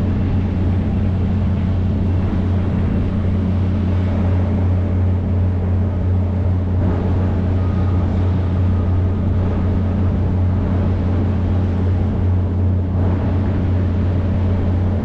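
Large engine running steadily at a constant speed: a deep, even hum with no change in pitch or level.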